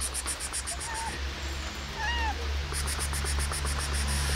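Domestic cat meowing twice: two short meows about a second apart, the second a little louder.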